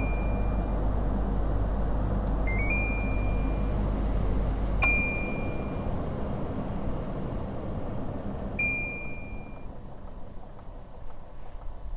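Air conditioner running with a steady rush of air and a low hum, giving four short beeps. About five seconds in, a beep comes with a sharp click, the low hum cuts out and the airflow dies down.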